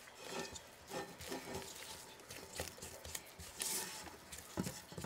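Faint, scattered scraping and soft taps of a utensil folding thick marshmallow-fluff and buttercream filling by hand in a mixing bowl.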